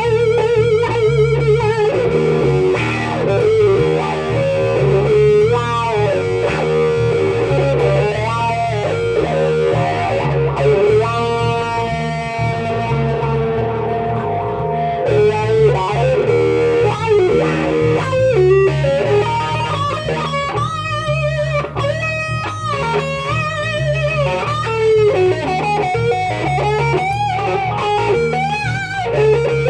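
Live blues-rock electric guitar solo over an electric bass line. The lead guitar bends notes up and down with wide vibrato, and around the middle it holds a long sustained note. The bass keeps a steady pulse underneath.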